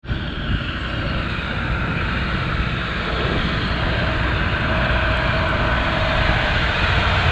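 DIEMA diesel locomotive hauling a loaded sugar cane train, its engine droning steadily and growing louder as it approaches.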